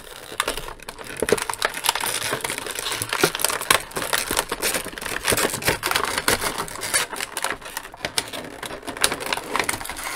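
Clear plastic packaging film crinkling and crackling as hands pull it off a plastic toy piece, a dense, irregular stream of sharp little crackles.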